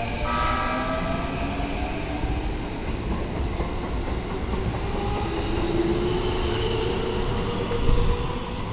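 Keikyu 1500-series electric commuter train pulling out of the station and accelerating past at close range. Its traction motors whine in several tones that slowly rise in pitch, over the rumble of the wheels on the rails.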